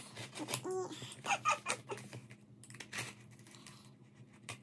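Utility knife blade cutting through packing tape on a cardboard box: a run of short, irregular scratches and clicks that thin out after about three seconds.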